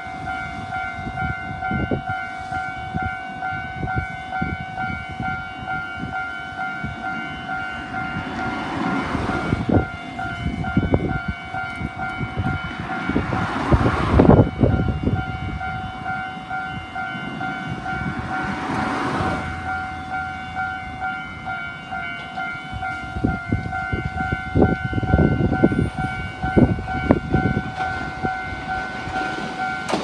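Japanese railway level-crossing warning bell ringing in a fast, steady, repeated two-tone 'kan-kan' while the crossing is closed. Three brief rushing swells of noise pass over it. In the last seconds an electric commuter train arrives, its wheels rumbling and knocking over the rails.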